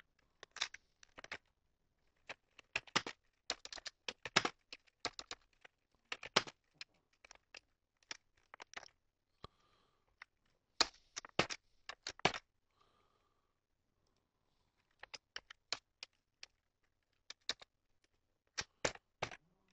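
Computer keyboard typing in short bursts of keystrokes, with a pause of about two seconds a little past the middle.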